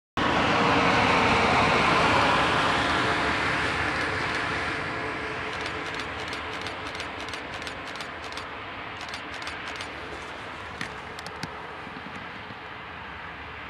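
A green DR class E42 (DB class 142) electric locomotive running light along the track and receding, its wheels rolling on the rails in a rushing sound that fades steadily. A run of light clicks comes from the rails in the middle.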